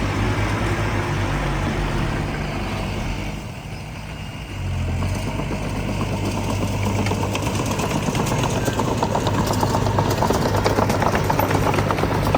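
Heavy-equipment diesel engine running steadily, easing off briefly a few seconds in and then picking up again, with a rapid metallic clatter building through the second half.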